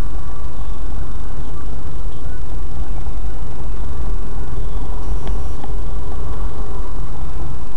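Car driving, its engine and road rumble picked up loud and heavy by a dashcam microphone inside the cabin, with two faint clicks a little after halfway.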